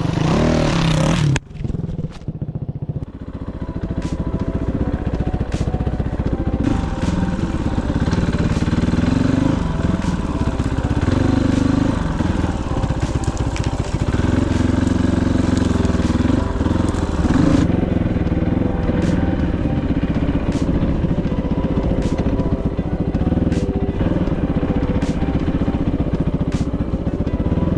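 Kovi 450i Pro dirt bike's single-cylinder engine running and revving up and down as it is ridden, with scattered sharp clicks and knocks. A loud burst of noise opens the sound and cuts off abruptly after about a second and a half.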